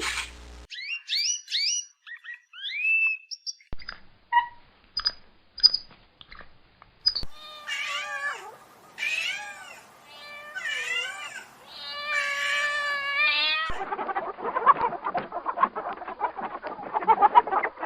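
A string of animal calls with cat meows at its core. First come high chirps that slide in pitch, then scattered short chirps and clicks, then a series of meows from about eight seconds in. From about fourteen seconds a dense, rough, noisy sound takes over.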